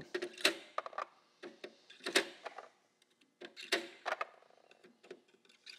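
Chrome quarter-inch drive deep sockets being set onto the posts of a socket tray one after another, making a series of sharp metallic clicks and clinks with short quiet gaps between them.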